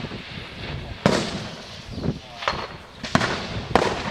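Rifle shots from elsewhere on the range: three sharp cracks, one about a second in and two close together near the end, each trailing off.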